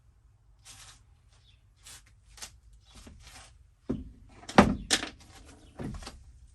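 Materials being handled inside a van during the build: scattered rustling, then a cluster of knocks and thuds about four to five seconds in, the loudest near the middle of the cluster, and one more knock shortly after.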